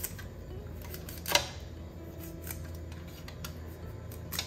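Two sharp clicks from kitchen things being handled, one about a second and a half in and one near the end, with a few fainter ticks over a steady low hum.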